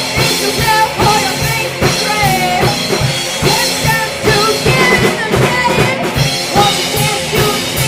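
Rock band playing, with a drum kit keeping a steady beat under gliding melodic lines.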